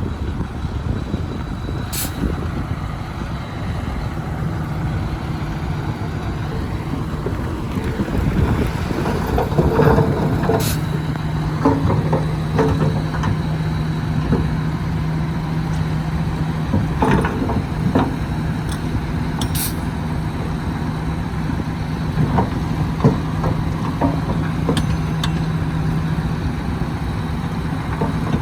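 Heavy earthmoving machinery's diesel engine running steadily with a low drone. A few short sharp sounds cut through it, at about 2, 11, 17 and 20 seconds in.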